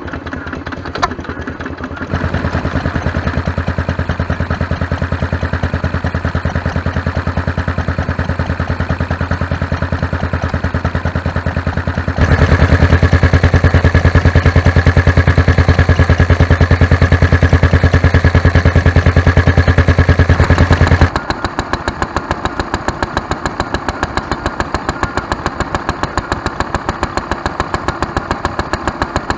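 Small vintage stationary engines running steadily, each with a fast, even exhaust beat. The sound changes abruptly three times as one engine gives way to the next. The loudest, through the middle stretch, is an Austin engine-driven dynamo lighting set.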